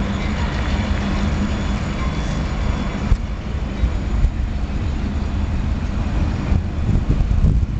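Freight train of covered hopper cars rolling past on the rails. The wheel clatter drops off suddenly about three seconds in as the last cars go by, leaving a low rumble with gusts of wind on the microphone.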